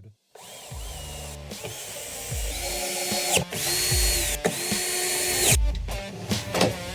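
Cordless drill-driver driving screws into a cabinet side, running in about four short bursts, each rising in pitch, holding steady and then stopping, with a few knocks between them.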